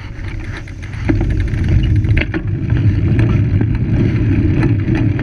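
Loud, rough low rumble of road and wind noise on a cyclist's camera as the bike moves off across the junction. It swells about a second in and stays strong, with a few light clicks on top.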